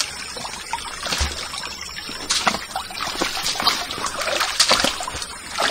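Footsteps splashing and sloshing through a shallow stream, an irregular run of steps over the steady trickle of the water.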